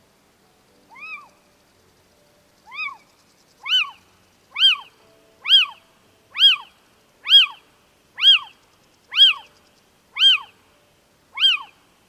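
Little owl giving a series of kiew calls, each a short call that rises and then falls in pitch. Eleven calls in all: the first two are fainter and spaced wider, then they come about once a second at a steady level.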